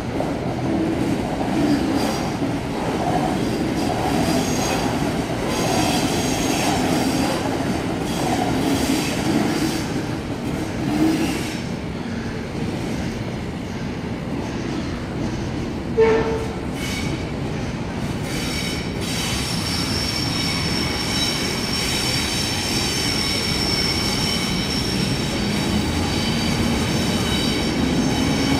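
Sydney Trains double-deck electric trains on the tracks. A train rumbles past over the wheels and rails, with a brief tone a little past halfway. From about two-thirds through, a second train rolls in with a steady high wheel squeal.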